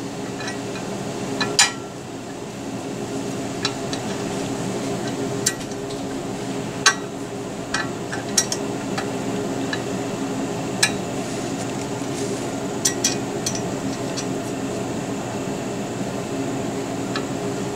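Light metal clinks, about ten at irregular intervals, as nuts and lock washers are threaded by hand onto the bolts of a steel bracket clamped to a trailer bumper, over a steady machine hum.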